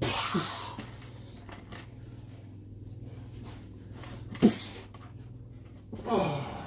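Play-wrestling scuffle: a burst of rustling with a short falling grunt at the start, one sharp thump of a body hitting the floor about four and a half seconds in, the loudest sound, and a falling vocal cry near the end.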